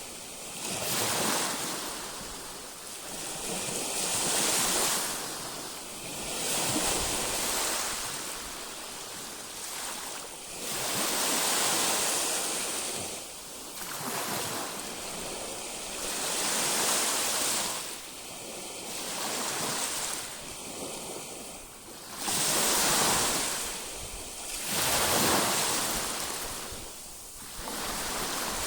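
Baltic Sea waves breaking on the shore, the wash of surf swelling and falling away every few seconds.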